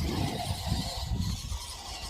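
Wind buffeting the microphone: an uneven low rumble that swells and drops, with a faint hiss above it.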